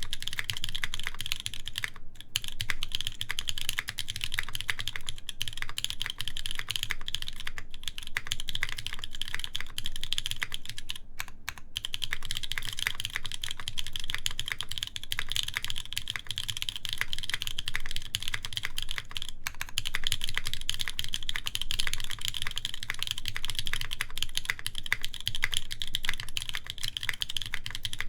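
Fast, continuous typing on a mechanical keyboard with lubed, broken-in Kailh Cream linear switches in a full aluminium plate, fitted with GMK keycaps: a dense stream of key clicks and bottom-outs with a few brief pauses.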